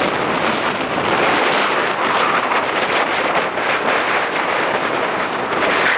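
Steady rushing of wind buffeting the microphone, with ocean surf behind it.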